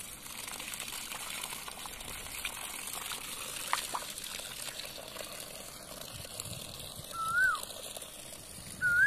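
Water gushing steadily from the open gate valve at the bottom of a drip irrigation screen filter, flushing out the dirty water the filter has caught, with a few light splashes as a hand dips into the water in the open filter housing. About seven seconds in, a short whistled note rises and then falls.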